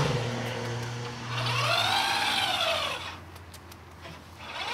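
Slide-out wheelchair ramp of a BraunAbility minivan conversion being pushed by hand along its track under the floor, making a scraping whine that rises and then falls in pitch as the ramp speeds up and slows over one stroke. A second stroke starts at the very end.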